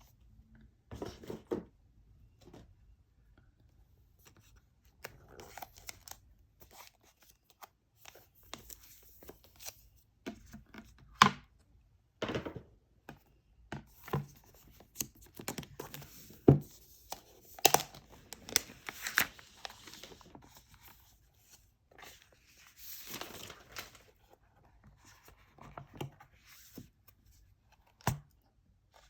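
Packaging being opened by hand indoors: tearing and rustling of paper or plastic seals, mixed with scattered short knocks and clicks from handling the box.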